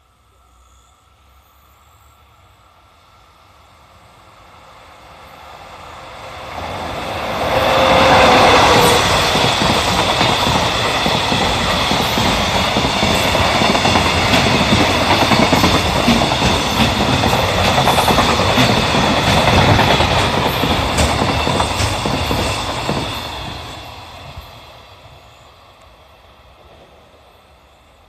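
JR EF66 electric locomotive hauling a freight train of flat container wagons past at speed. The rumble and clickety-clack of wheels over rail joints builds from about four seconds in, stays loud for some fifteen seconds as the wagons pass, then fades away. A level crossing warning bell rings steadily underneath, and a brief wheel squeal comes as the locomotive arrives.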